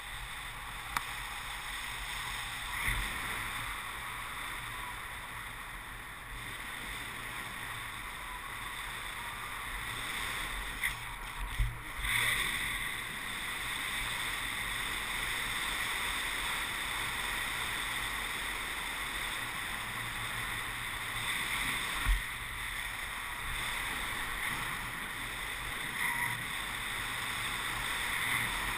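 Steady rush of air past a paraglider in flight, heard as wind noise on the camera's microphone, with a few short knocks.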